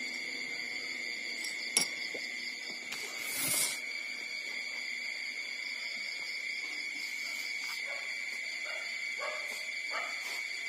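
Nursing puppies giving short whimpering cries in the second half, over a steady high-pitched hum. A click comes about two seconds in, and a brief noisy burst about three and a half seconds in is the loudest moment.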